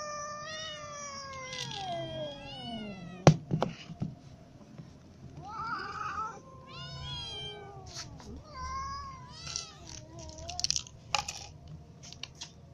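Several hungry cats and kittens meowing to be fed, one call after another: a long meow that falls in pitch opens, and shorter meows follow from the middle on. A single sharp knock sounds a little over three seconds in.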